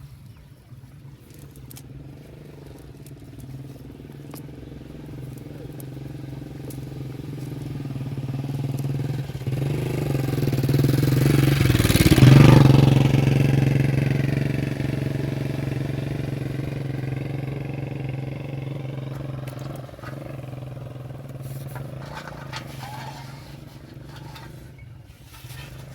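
A small engine passing by: it grows steadily louder for about twelve seconds, its pitch drops as it goes past about halfway through, and then it slowly fades away.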